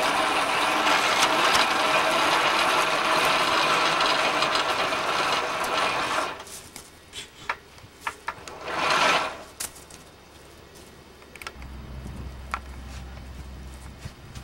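Hydraulic winch drum spinning freely in free-spool mode as its steel cable is pulled off by hand: a loud, steady mechanical noise that stops abruptly about six seconds in. After that come scattered clicks and crunches from footsteps on wood chips and the cable dragging, then a low steady hum near the end.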